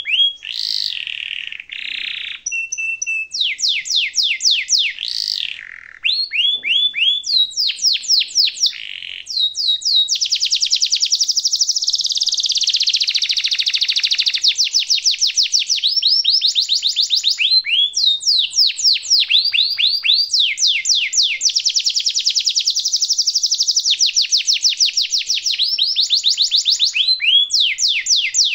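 Domestic canary singing: short, varied phrases of rapid trills at first, then from about ten seconds in a long, almost unbroken roll of fast repeated notes that each sweep quickly downward.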